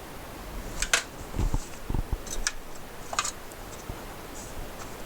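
Scattered light clicks and a few dull knocks of small metal and plastic parts of a disassembled floppy drive being handled and set down on a bench.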